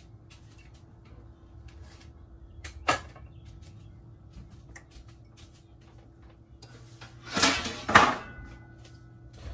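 Kitchen handling sounds: a single sharp knock about three seconds in, then a louder double clatter of cookware near the end, over a faint steady hum.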